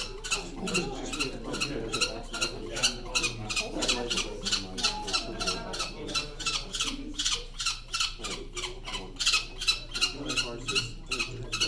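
Peregrine falcon chick calling in a rapid, even series of short, harsh squawks, about four a second, as it is handled for banding, with people murmuring underneath.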